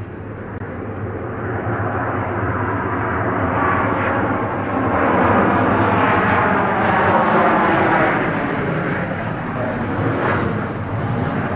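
Boeing 737 jet airliner on final approach, its engines' rumble and whine growing louder over the first few seconds as it nears, loudest around the middle, then easing slightly near the end.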